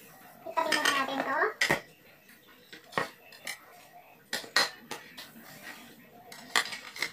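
Ceramic plates and a bowl being moved and set down on a stainless-steel kitchen counter, making several separate clinks and knocks.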